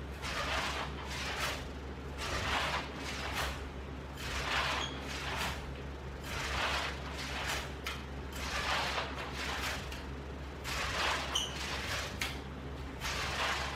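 Ab roller rolling out and back in repeated rollouts, making a rhythmic swishing about once every second or so over a faint steady low hum.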